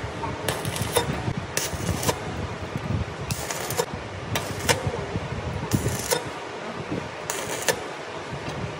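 Stick (arc) welding with a clamp-type electrode holder on small steel pipe: the arc is struck in about six short bursts, each under half a second, over a steady background hiss.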